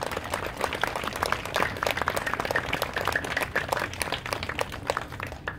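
A crowd applauding: a dense, steady patter of many hands clapping.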